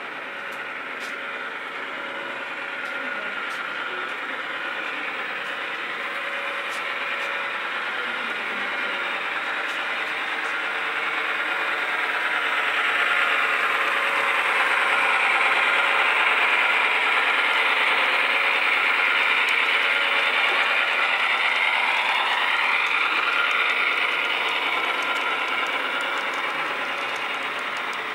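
Model intermodal train of double-stack container cars rolling along the track, a steady whirring, rattling run of wheels on rail. It grows louder as the cars pass close, is loudest around the middle, and eases toward the end.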